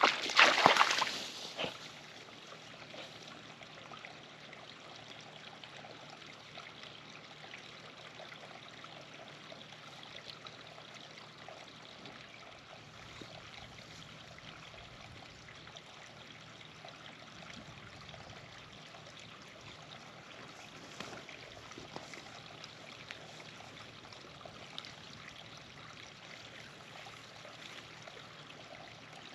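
A short loud burst of noise in the first two seconds, then a creek trickling steadily and softly.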